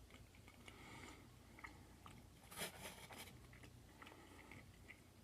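Faint chewing of food, soft wet mouth clicks with a slightly louder bite about two and a half seconds in.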